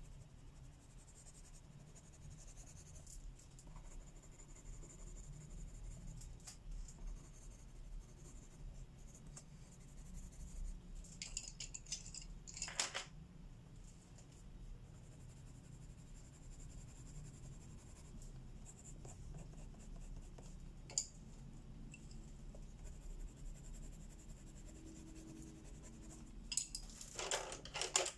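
Pencil scratching on paper in quick, faint shading strokes while a grayscale page is coloured, with a couple of louder clicks or knocks, about halfway through and near the end.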